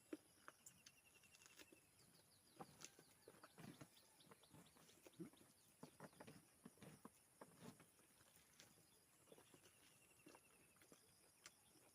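Faint eating sounds: scattered soft chewing and mouth noises with small clicks. A bird trills briefly in the background twice, once near the start and again near the end.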